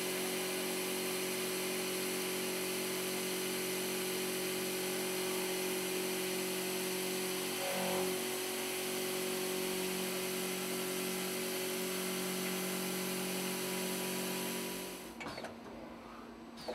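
Voortman V310's milling spindle running a milling cutter through steel plate: a steady, drill-like cutting whine with a hum under it, changing briefly about eight seconds in. Near the end it cuts off suddenly, leaving a much quieter mechanical sound.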